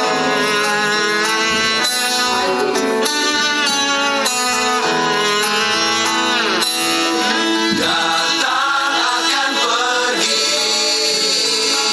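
A song playing: plucked guitar notes, with a voice singing over them from about two-thirds of the way in.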